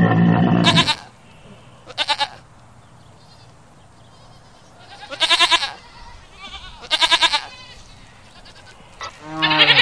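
Goat bleating repeatedly: a loud bleat ending about a second in, then three shorter quavering bleats spaced a few seconds apart, and another loud one starting near the end.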